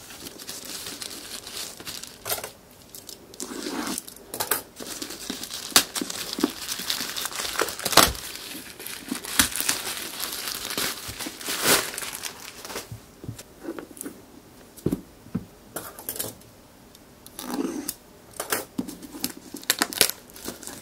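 Black plastic mailer bag being torn open and crumpled by hand: irregular rustling and crinkling with a few sharp, louder crackles, the loudest about eight seconds in.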